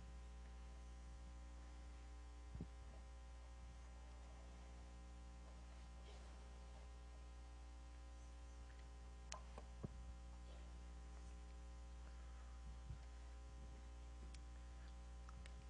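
Near silence with a steady electrical mains hum and a few faint knocks.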